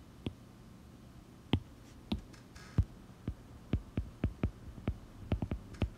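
Stylus tip tapping on a tablet's glass screen during handwriting: a few scattered taps, then quicker ones in the second half, over a faint low hum.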